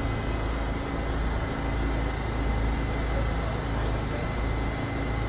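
R68 subway train standing at the platform, its air-conditioning and auxiliary equipment giving a steady low hum with a faint constant high whine.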